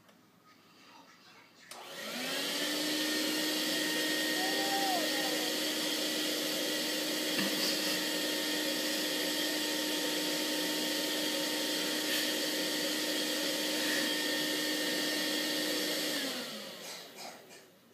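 Yellow Eureka corded stick vacuum switched on about two seconds in: the motor spins up to a steady whine, runs for about fourteen seconds, then is switched off and winds down near the end.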